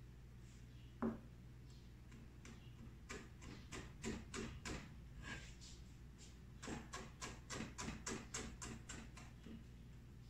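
A knife chopping fresh herbs on a cutting board: a single knock about a second in, then two runs of quick taps on the board at about three a second.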